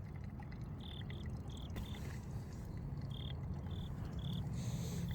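An animal chirping outdoors: about seven short high chirps in twos and threes, over a low steady rumble.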